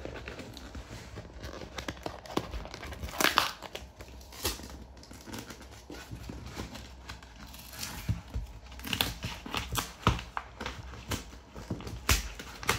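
Brown paper packing tape being peeled and torn off a cardboard shipping box, crinkling in irregular bursts with a few sharper rips, the loudest about three seconds in, while hands rub and knock the cardboard.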